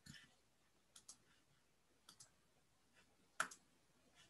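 Near silence broken by about seven small, sharp clicks at uneven intervals, the loudest about three and a half seconds in.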